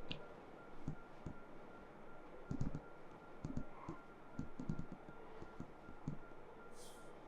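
Irregular soft taps and dull thuds of hands working on a body during a massage, with a few light clicks mixed in.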